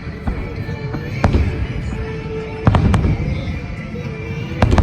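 Fireworks finale: shells bursting with sharp bangs, three loud ones about a second and a half apart, over a continuous low booming rumble of many shells fired at once, with the show's music playing.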